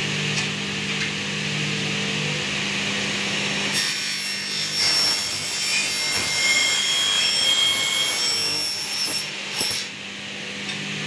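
Power saw cutting through an aluminium window profile, starting about four seconds in and lasting about six seconds. It is a loud rasping cut with high ringing whines from the blade, over a steady low hum that is heard alone before and after the cut.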